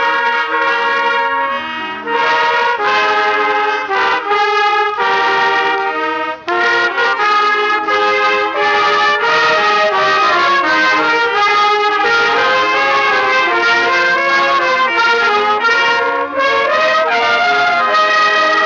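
A trumpet ensemble playing a tune together in several parts, the notes changing every half second or so, with a short break about six and a half seconds in.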